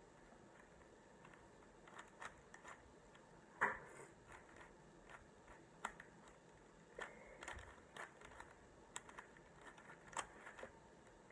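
Rubik's Cube being turned by hand: faint, irregular clicks and rattles of the plastic layers, with one louder click about three and a half seconds in.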